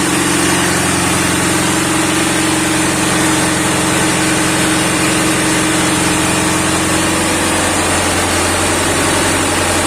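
Clarke engine running steadily after a repair, with a slight change in its lower tone about seven seconds in.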